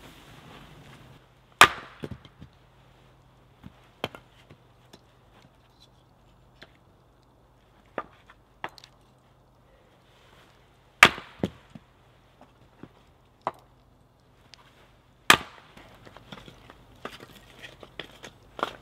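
Axe chopping on a stump chopping block, splitting wood into kindling: three sharp, loud chops spaced several seconds apart, with lighter knocks and the clatter of split pieces between.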